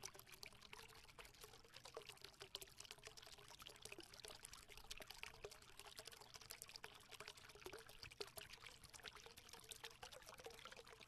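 Faint trickle of spring water running over rocks: a dense, irregular crackle of small splashes.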